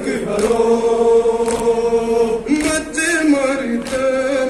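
Men's voices chanting a Kashmiri nowha, a Shia mourning lament, in long held notes, with a sharp slap about once a second keeping time.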